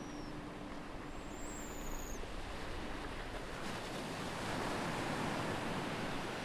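Ocean surf washing onto a beach, swelling to its loudest a little past the middle. A single high seagull call sounds about one and a half seconds in, and the faint hum of a meditation bell's last ring dies away in the first few seconds.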